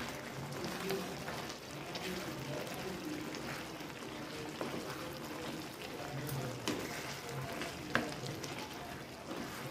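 Prawn and Malabar spinach curry sizzling and bubbling in a pan while a wooden spatula stirs it, with a few light knocks and scrapes of the spatula against the pan.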